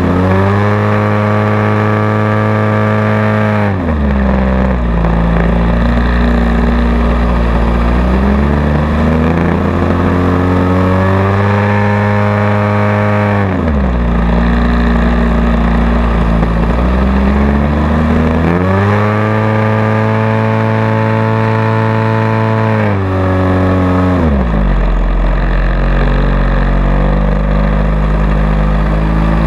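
Radio-controlled model airplane's engine heard from a camera mounted on the plane, its speed rising and falling through aerobatics: a high note for a few seconds, a drop, then a climb back up, about three times over. Airflow noise rushes past the camera throughout.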